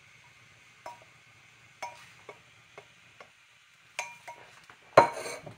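Light clinks and knocks of kitchenware being handled: a small stainless saucepan and a glass baking dish, about half a dozen sharp taps over four seconds, then a louder clatter about five seconds in.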